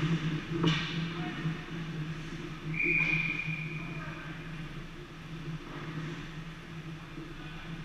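Ice hockey referee's whistle: one short blast about three seconds in, over the steady low hum of the rink. A sharp knock on the ice comes just under a second in.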